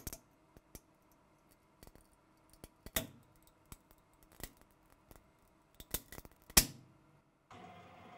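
Optimised forged carbon fibre specimen cracking under a three-point bend load: a series of irregular sharp cracks and snaps as the fibres fracture and the layers split, with the loudest snap about six and a half seconds in. A steady hum starts near the end.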